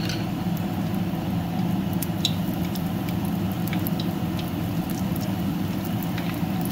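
Bannock batter frying in very hot oil in a pan: a steady sizzle with scattered small crackling pops, over a steady low hum.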